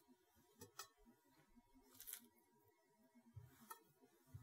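Near silence, with a few faint brief clicks and soft rustles of raw chicken wings being lifted from a foam tray and laid on a ceramic platter.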